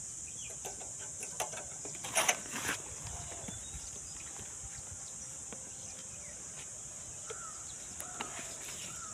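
Soft rustles and a few light knocks, loudest a little over two seconds in, as sacks of clay are handled and lashed with a rubber strap, over a steady high hiss. Faint short bird calls come in near the end.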